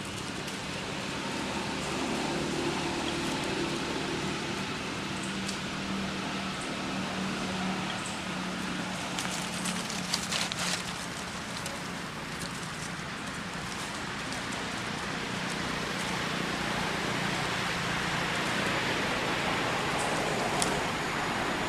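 Steady outdoor background noise: an even hiss with a faint low hum under it, and a short run of crackles about ten seconds in.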